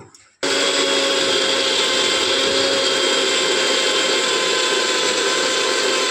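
Bajaj electric mixer grinder switched on about half a second in, its motor running steadily with a high whine as the steel jar grinds coconut, chillies and garlic with a little water into chutney.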